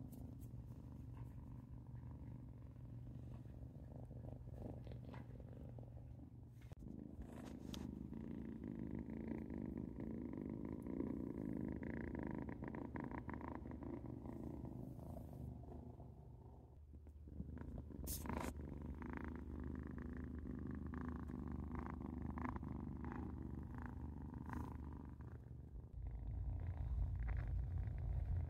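Black-and-white kitten purring steadily, a continuous low rumble that breaks off briefly twice and grows louder near the end.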